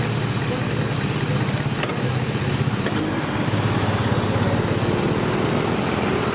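A motor vehicle engine running steadily, with outdoor street noise around it.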